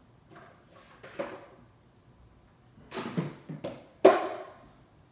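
Kitchen handling sounds while pancake mix is measured out: a run of knocks and clatters of containers and utensils, the loudest a sharp knock about four seconds in.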